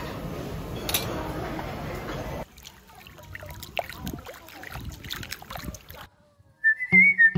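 Busy background noise that cuts off abruptly about two and a half seconds in, followed by quieter scattered clicks and rustles. Near the end, after a brief hush, background music begins: a whistled melody over short bass notes.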